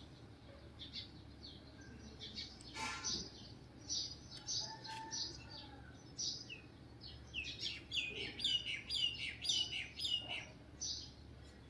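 Small birds chirping: many short, high chirps with quick downward sweeps, coming thicker and louder in the second half.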